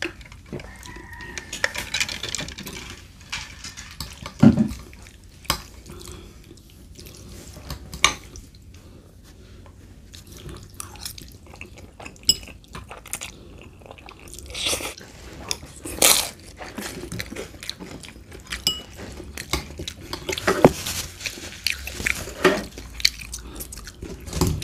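Close-miked eating: two people chewing and slurping spaghetti, with scattered sharp clicks of forks against plates.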